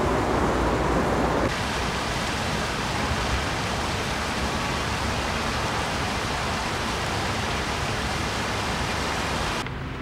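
Steady rushing of water flowing over stones in a shallow stream and a small stepped stone cascade. The rushing changes in character about a second and a half in and grows quieter near the end.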